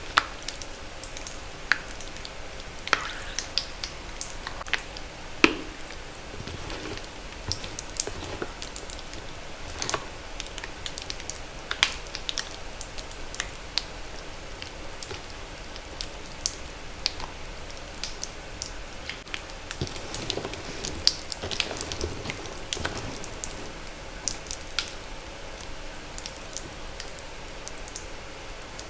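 Wet magnesium carbonate chalk being crushed, giving irregular sharp pops and crackles over a soft hiss. The louder pops stand out now and then, and a denser run of crackling comes about two-thirds of the way through.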